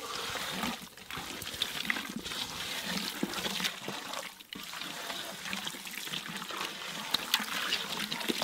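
Hand squishing and turning masala-coated murrel fish pieces with cornflour in a steel pot: continuous wet squelching with many small clicks, easing off briefly about a second in and again about halfway through.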